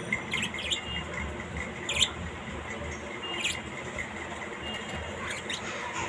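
A few short, high chirps and squeaks from a green parrot in a wire cage, coming singly a second or two apart.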